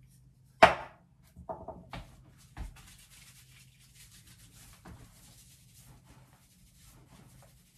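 A sharp click near the start and a few softer knocks, then a faint rustling of hands rubbing styling product between the palms and working it through hair.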